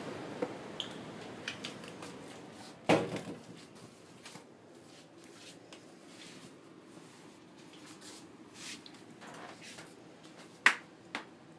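Rubber flip-flops slapping and clicking against a tiled floor in a few irregular sharp slaps, the loudest about three seconds in and another near the end, in a small echoing room.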